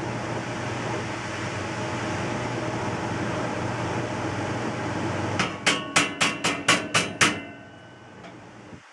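A steady hum, then about five and a half seconds in a quick run of eight hammer blows on the truck's sheet-metal wall framing, about four a second, each ringing briefly. The hum drops away near the end.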